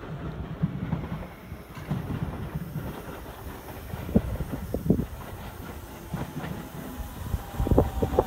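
JR Central 373 series electric express train pulling into the station: low rumble with wheels clicking over rail joints, growing louder as it draws alongside, with a steady whine coming in near the end.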